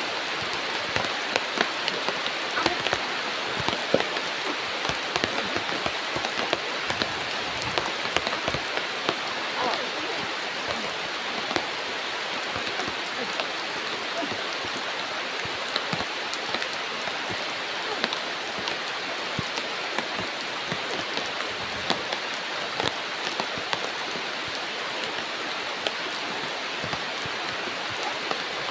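Heavy rain pouring down: a steady dense hiss with many sharp raindrop hits.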